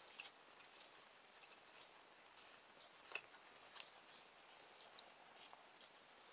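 Near silence with a few faint clicks and scrapes of a plastic solar vent housing being handled as its solar panel is worked out of the mount; the two clearest clicks come about three seconds in and a little later.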